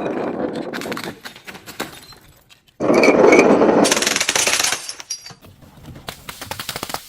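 Glass being crushed and breaking: crunching and cracking in bursts. The loudest burst comes about three seconds in and lasts about two seconds, followed by a run of fine crackles near the end.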